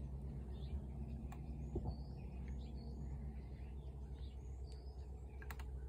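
Small birds chirping faintly and intermittently in the background over a steady low hum of outdoor noise, with a few soft clicks.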